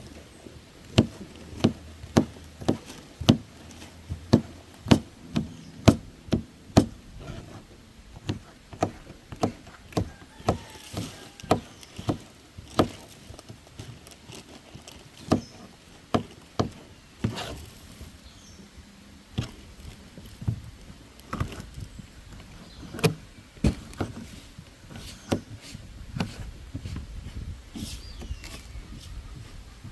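Knife chopping on a cutting board: a run of sharp chops about twice a second for the first dozen seconds or so, then more scattered chops.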